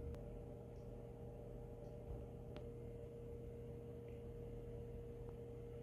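Quiet room tone with a steady electrical hum and a few faint clicks.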